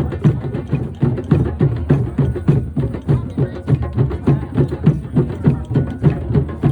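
Group of drums playing a steady, driving beat, about four strokes a second.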